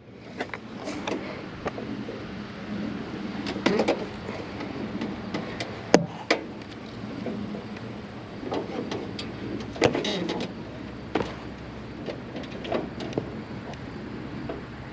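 Small riding-mower engine idling steadily, with scattered knocks and clanks of metal being handled.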